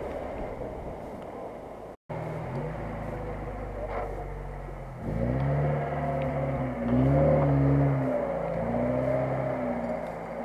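An off-road SUV's engine running as it churns through shallow water, then, after a cut about 2 seconds in, a Lada Niva's engine revving up and down in surges as it drives through the water, loudest in the middle.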